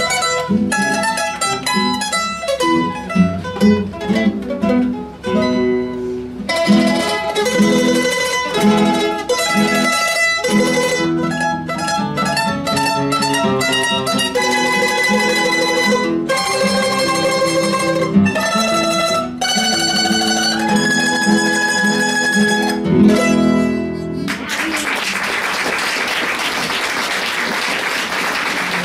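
Two Neapolitan bowl-back mandolins and a guitar playing a lively march with rapid plucked notes, closing on a final chord about 24 seconds in. Audience applause follows to the end.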